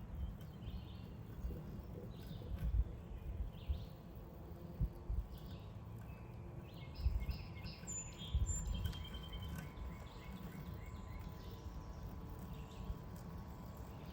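Birds chirping in short calls, over a constant low rumble with irregular bumps. A faint steady hum comes in about halfway through.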